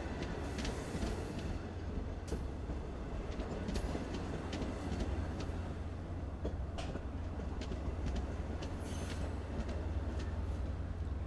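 Long Island Rail Road push-pull train of Kawasaki C3 bilevel coaches, cab car leading, rolling past with a steady low rumble and scattered wheel clicks. Two short high hisses come about a second in and near the end.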